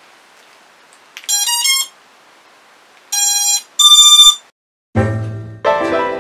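HGLRC Zeus 45A BLHeli_32 4-in-1 ESC sounding its power-up tones through the brushless Aeolus 2207.5 motors. About a second in comes a quick run of short notes rising in pitch, then a lower beep and a louder, higher beep. The tones mark the ESC starting up and arming when the LiPo battery is connected: a successful first power-up of the build.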